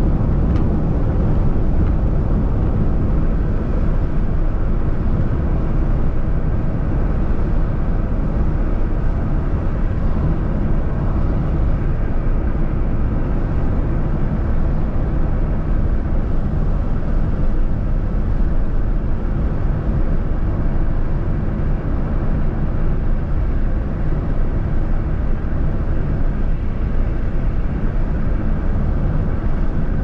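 Car driving at a steady pace, a continuous low rumble of road and engine noise that does not change.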